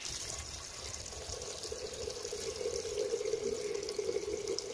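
Water running from a tap into a stainless steel pot, filling it with a steady splashing hiss.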